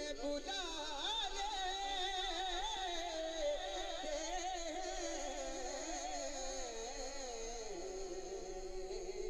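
A man singing an Urdu devotional song into a microphone: one long ornamented phrase with quick wavering turns, held and sliding slowly downward in pitch, and settling on a lower note near the end.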